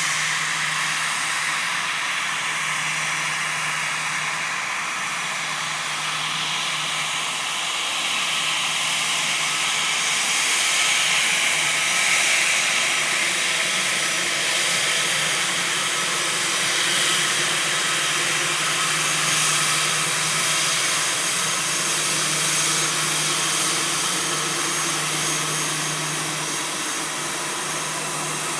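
Airliner's jet engines running at taxi power as it backtracks along the runway: a steady rushing noise with faint steady tones, swelling slightly for a few seconds near the middle.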